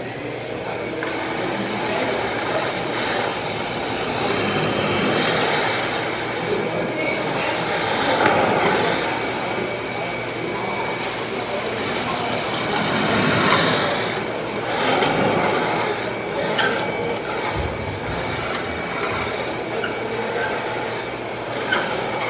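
A shop machine switches on abruptly and runs loudly with a steady whir.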